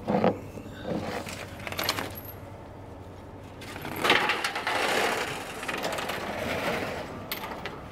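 Metal clinks and knocks of tow chain and burnt truck wreckage being handled: a few sharp knocks in the first two seconds, then a longer stretch of scraping and rattling from about four seconds in.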